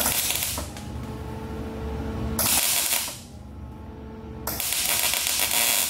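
MIG welder tack-welding a steel bracket to a car's floor pan: three bursts of arc noise with short pauses between, the last one the longest. The welds are laid over weld-through primer and get zero penetration.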